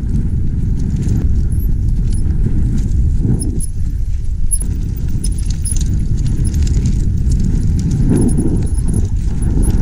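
Wind rumbling on an action camera mounted on a mountain bike riding down a rough, rocky trail, with constant rattling and clattering from the bike and tyres over the bumps.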